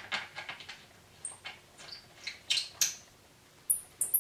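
Gloved hands handling the underside of a power sport seat's frame and wiring: an uneven string of sharp plastic and metal clicks, taps and light rattles, with several louder clicks in the second half.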